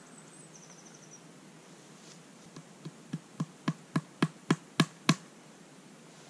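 Hammer driving a short nail through a laminated label into a wooden fence post: a quick run of about ten strikes, about four a second, growing louder, starting a couple of seconds in.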